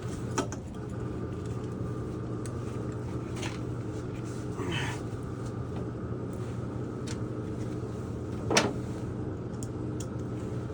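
Hard plastic and metal parts of a tankless water heater clicking and knocking as they are handled and fitted. There are a few separate clicks, the sharpest about eight and a half seconds in, over a steady low machine hum.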